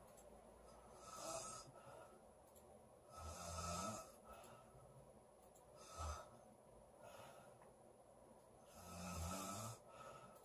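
A girl snoring in her sleep, a series of separate breaths a few seconds apart. The two loudest, rattling snores come about three seconds in and near the end, with a shorter one about six seconds in and a faint breath about a second in.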